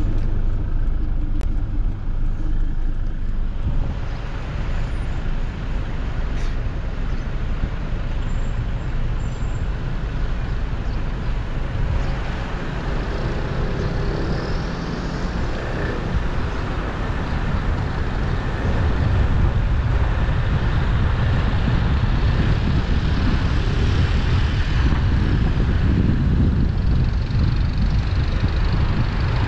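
Steady street traffic noise, with vehicles passing close by; it grows a little louder past the middle.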